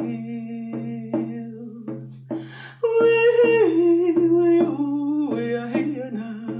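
A woman humming a wordless melody of the song over a slow drum beat: a note held at first, then from about three seconds in a louder tune stepping down in pitch.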